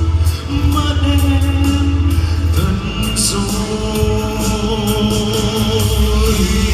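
Music: a song sung over a band accompaniment, with long held notes over a heavy bass and a steady beat.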